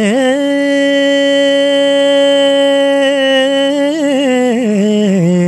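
A man singing a long drawn-out vowel at the opening of a song. He wavers into a high note, holds it for about three seconds with a brief quiver, then slides down through winding ornamental turns to a lower note.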